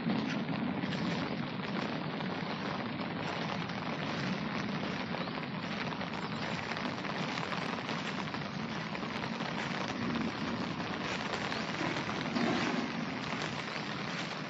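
Steady rain falling on a muddy dirt track and the grass around it.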